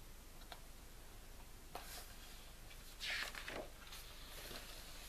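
Quiet room with the faint rustle of picture-book pages being handled, loudest in one brief paper rustle about three seconds in.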